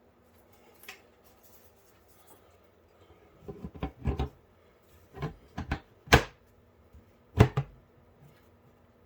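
Panels of a Fractal Torrent PC case being pressed onto the chassis: a run of knocks and clunks partway through, then two sharp snaps a little over a second apart as the panels click into place.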